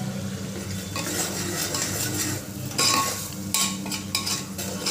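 A metal ladle stirring spiced tomato-onion masala as it sizzles in oil in an aluminium pressure cooker. The ladle scrapes and knocks against the pot several times in the second half.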